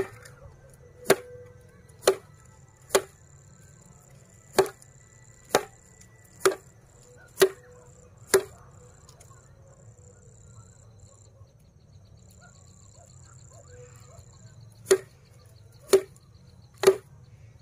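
A sheaf of rice stalks beaten by hand against a flat board to thresh out the grain: sharp whacks about once a second, nine in a row, a pause of some six seconds, then three more.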